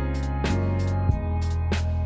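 Outro background music with a steady beat, drum hits about every half second over a held bass line.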